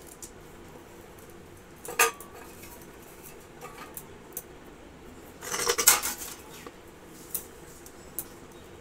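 Light metallic clinks and clatter as small items are handled on and against a stainless steel plate: one sharp clink about two seconds in, a quick run of clinks a little past the middle, and a few small taps after.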